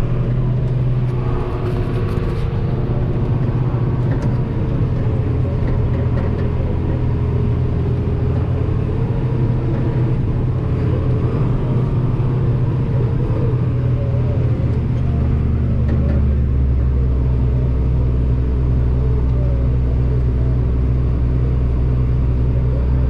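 Heavy farm machinery's diesel engine running steadily under load, a constant low hum. About fifteen seconds in, a deeper drone joins and holds.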